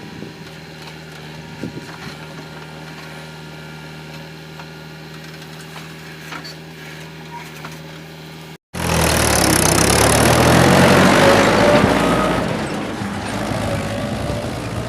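Diesel engine of heavy machinery running steadily. About nine seconds in, the sound cuts out for an instant and comes back much louder and harsher, an engine heard close up.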